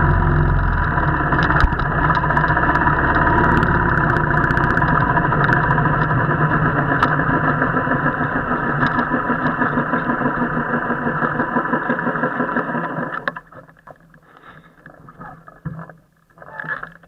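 Royal Enfield motorcycle's single-cylinder engine running with a steady, pulsing rumble. It cuts off sharply about thirteen seconds in, leaving only faint scattered sounds and a brief louder burst near the end.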